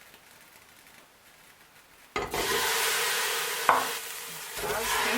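Steady sizzling hiss from the cooking pot on the stove, starting suddenly about two seconds in, with a steady hum under it. After a click it carries on somewhat quieter.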